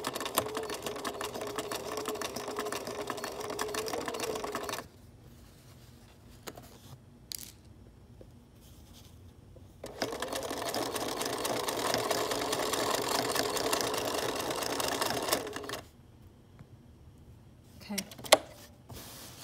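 Domestic sewing machine stitching a hem through layered curtain fabric, in two runs of about five and six seconds with a pause between. Its motor hums at a steady pitch while it sews, and there are a few light clicks in the pause and near the end.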